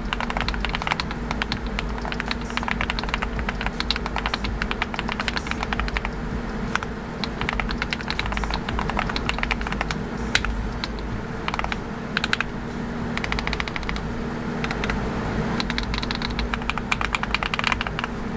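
Fast typing on a NuPhy Halo 65HE Hall-effect magnetic-switch keyboard: a dense, continuous clatter of keystrokes with brief pauses.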